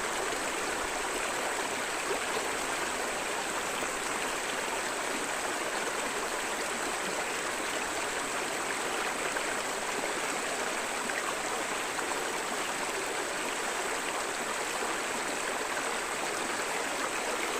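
River water flowing over stones in a steady, even rush.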